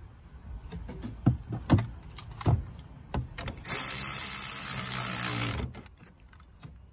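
Sharp clicks and knocks of gloved hands handling parts around a 12-volt car battery, then a cordless electric ratchet running on a fastener by the battery for about two seconds before stopping abruptly.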